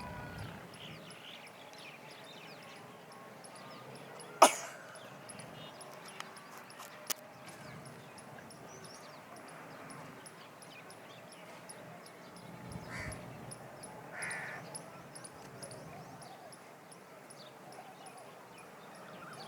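Several birds chirping, with a steady run of short, high ticking notes throughout. A sharp, loud click comes a little over four seconds in, and two harsher calls come near the end.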